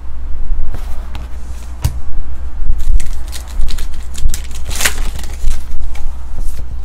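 Trading-card pack wrapper crinkling and tearing as it is ripped open by hand, then cards rustling as they are fanned through, in a stream of irregular crackles over a steady low hum.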